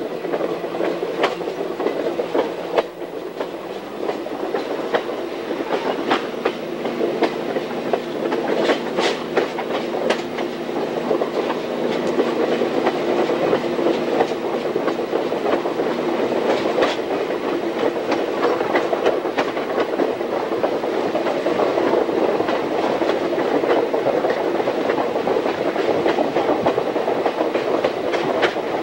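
Train rolling along jointed track: a steady rumble of wheels on rail with a low drone and irregular rail-joint clicks.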